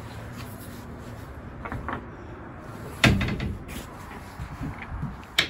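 Metal door or hatch on a locomotive's cab being handled: a few light knocks, then a loud clunk about three seconds in and another sharp knock near the end.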